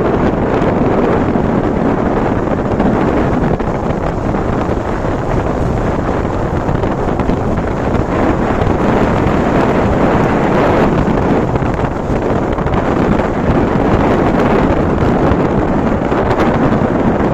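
Steady wind rush buffeting the microphone on a moving motorcycle, with the bike's engine running beneath it.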